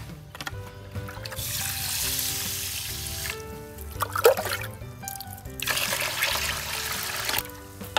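Water poured from a plastic bowl into an aluminium pot of raw rice, in two pours of about two seconds each, with a short knock between them. Background music with soft sustained notes plays throughout.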